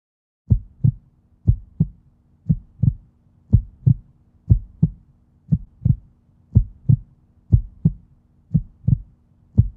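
Heartbeat sound effect: a steady lub-dub, about one beat a second, beginning half a second in.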